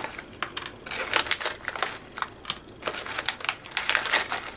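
Small craft beads and metal rings clicking against each other as they are sorted through by hand: a quick, irregular patter of light clicks.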